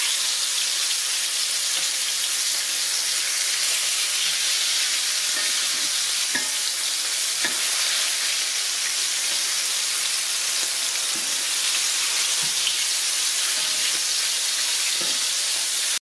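Catfish pieces in corn flour frying in hot lard in a cast iron skillet: a steady sizzle, with a few light clicks of metal tongs as the pieces are turned over. The sound drops out for a moment at the very end.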